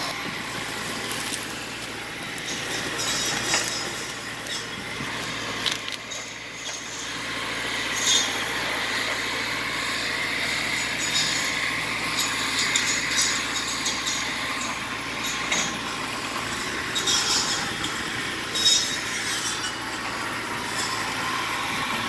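Tracked Jarraff boom-saw tree-trimming machine running steadily as it trims trees along a power line, with a swell of saw noise in the middle and several short sharp cracks.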